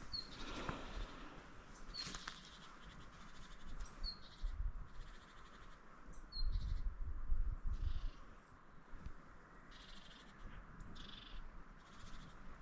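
A bird chirping: short, high, falling chirps repeated about every one to two seconds, over faint low rustling.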